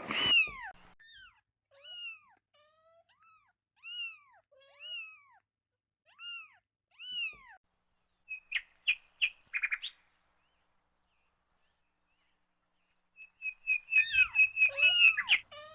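Kittens mewing: a string of high, thin mews, each rising and falling, roughly one a second. After a short lull comes a run of quick short chirps, and near the end a busy cluster of overlapping mews and chirps.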